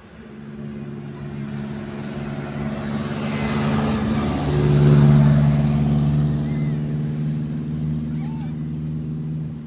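A motor vehicle passing on the road: a steady engine hum with tyre noise that grows louder, peaks about halfway through and then fades.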